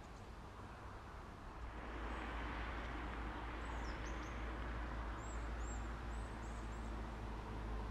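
Outdoor ambience: a steady rushing noise over a low rumble that grows louder about two seconds in, with small birds chirping high above it in the middle.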